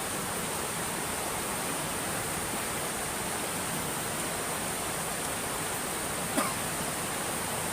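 Steady rushing of flowing water, even and unbroken, with a single faint click about six seconds in.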